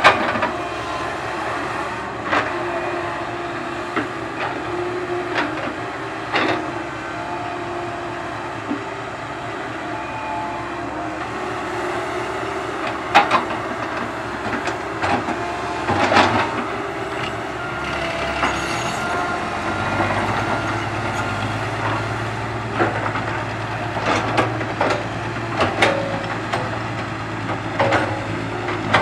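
Komatsu PC130 hydraulic excavator working: its diesel engine runs steadily under load, with high squeals and whine from the boom, bucket and tracks. Rocks and dirt clatter and knock as the bucket loads the dump truck bed. A deeper steady engine hum sets in about two-thirds of the way through.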